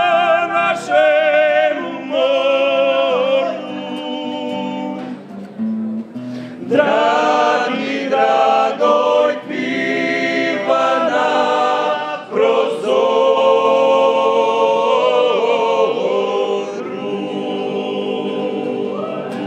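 Klapa, a Dalmatian male vocal ensemble, singing held phrases in close multi-part harmony with nylon-string guitar accompaniment, with a short break about five seconds in.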